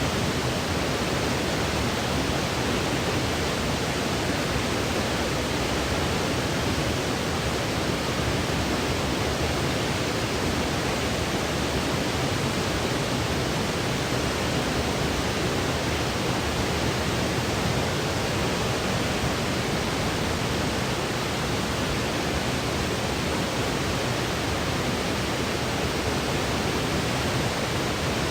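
Steady white noise, an even, unchanging hiss spread across low and high pitches, played as a sleep aid.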